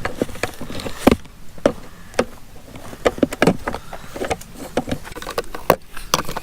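Irregular clicks and knocks of pliers and hard plastic parts being handled while the metal pin on the ride-on toy motorcycle's rear axle is bent over to hold the wheel on.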